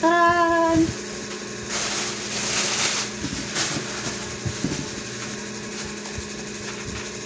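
A short held pitched tone for the first second, then tissue paper and plastic wrapping rustling as a handbag is unwrapped, over a steady low hum.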